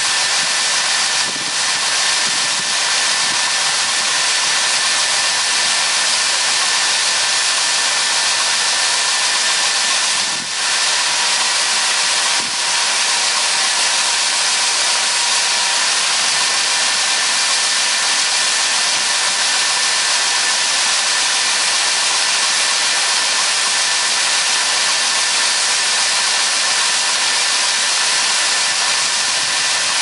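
Grain cart's unloading auger running, pouring soybeans into a semi's grain trailer: a loud, steady hiss of flowing beans with faint steady whining tones from the machinery.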